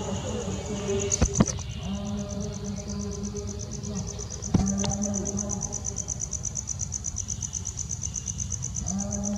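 Insects trilling: a high, rapidly pulsing tone that sets in about a second in and carries on. Two sharp clicks cut through it, the loudest about a second and a half in and another near the middle.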